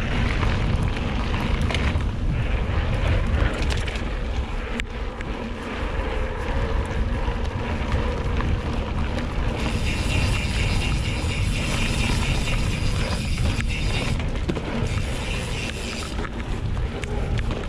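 Wind buffeting the microphone of a handlebar-mounted camera, over the steady rumble of mountain bike tyres rolling on a gravel path and then a dirt forest trail.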